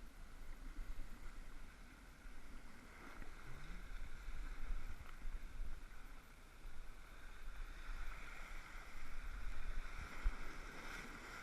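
Sea water washing and sloshing steadily, with wind buffeting the microphone in low gusts; the washing swells louder in the second half.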